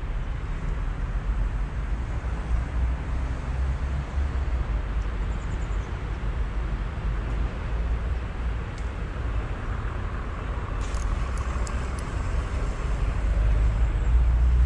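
Steady low rumble of distant road traffic, with a few faint clicks about eleven seconds in.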